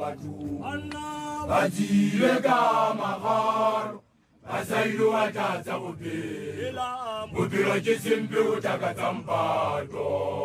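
A group of Basotho initiates chanting a traditional song together in men's voices. About four seconds in, the singing drops out for a moment, then carries on.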